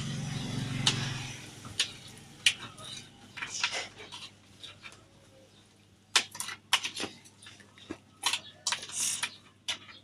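Scattered sharp clicks and taps of small plastic containers and a stirring utensil being handled over a bowl of slime. They are sparse in the middle and come thick and fast near the end, after a low rumbling noise in the first second or so.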